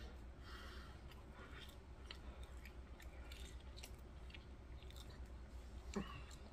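A man chewing a mouthful of chicken salad sandwich, faint, with scattered soft mouth clicks and a slightly louder brief sound about six seconds in.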